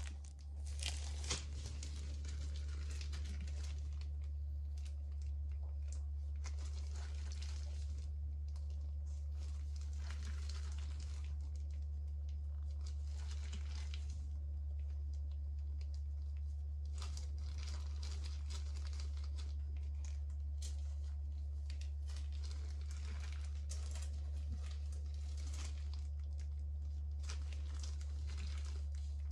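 Thin plastic disposable gloves crinkling and rustling in irregular bouts as gloved hands thread marinated chicken pieces onto wooden skewers, over a steady low hum.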